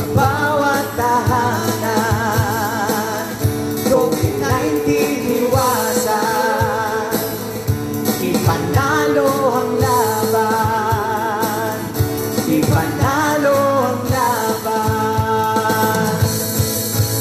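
Live vocal group singing in harmony with acoustic guitar accompaniment, holding long notes with vibrato.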